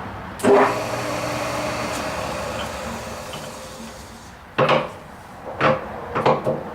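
Gear-head lathe headstock (Millport SJ-1740G) with a sharp clunk about half a second in, then running at about 120 rpm with a steady gear hum that dies away. Several heavy metal clunks follow near the end as the speed-change levers are shifted to the next speed.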